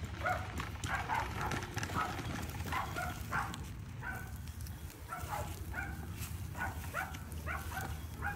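A dog giving short, high-pitched cries over and over, two or three a second, with a brief pause about halfway through, over a low steady hum.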